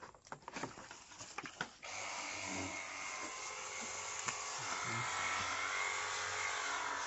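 Cordless pressure washer starting up about two seconds in, after a few light clicks, then running steadily. A faint electric pump whine sits under the even hiss of the water jet.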